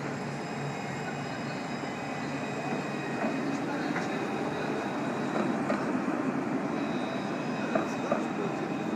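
Alstom Citadis low-floor electric tram running past at close range, its rolling and motor noise growing louder about three seconds in, with a few short squeaks near the end.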